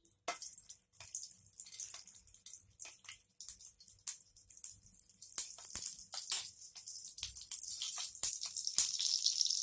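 Besan-stuffed green chillies frying in hot oil: a steady sizzle with many sharp pops and crackles, growing denser near the end.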